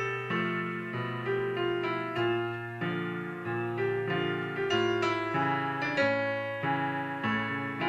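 Piano sound played on a MIDI keyboard: an instrumental passage of notes and chords struck in an even pulse, each ringing and fading before the next.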